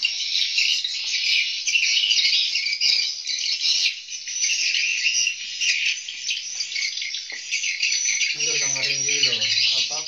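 Dense, continuous high-pitched twittering of swiftlets inside a swiftlet house. A voice comes in near the end.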